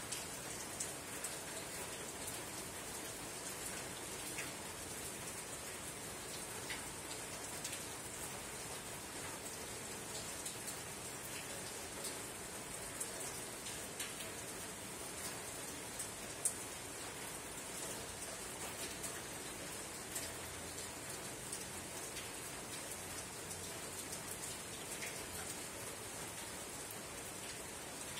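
Soft rain falling steadily on a tin roof: an even hiss with scattered single drops ticking, and one sharper tick a little past halfway.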